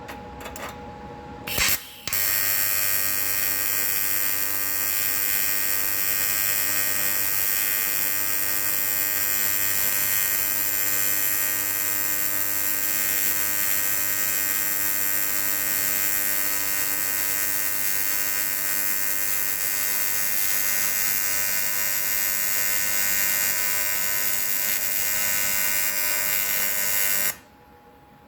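Welding arc on aluminium pipe, buzzing steadily for about 25 seconds. It strikes about two seconds in after a couple of sharp crackles and cuts off suddenly near the end.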